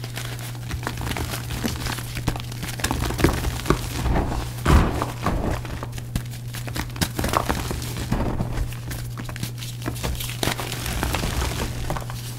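Pasted, re-dried gym chalk blocks being crushed: an irregular run of crunches and crumbling, with the heaviest break about five seconds in.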